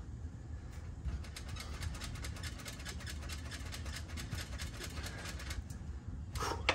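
Stock exhaust muffler of an Indian Scout Rogue being twisted back and forth to work it off its pipe: a run of small metallic clicks and creaks over a low steady rumble, with a louder knock near the end.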